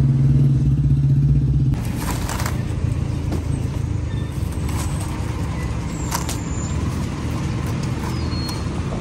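Motor vehicle running on the road: a steady low engine hum that changes abruptly about two seconds in to a quieter, even rumble of road noise, with a few light clicks and brief high chirps.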